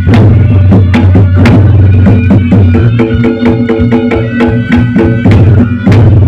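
Reyog Ponorogo accompaniment music played loud: drums struck in a quick, dense rhythm over a deep steady low drone. Held pitched tones ring out from about halfway through.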